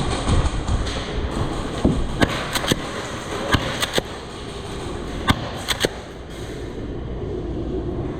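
Airsoft guns firing during a game: about a dozen irregular sharp snaps, some in quick pairs or clusters, over a steady low rumble of movement and handling noise.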